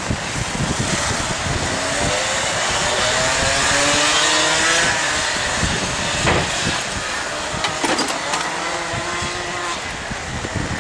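Several racing kart engines accelerating on a wet track, their pitches rising in overlapping runs as the karts pull out of corners, over a steady hiss. Wind buffets the microphone.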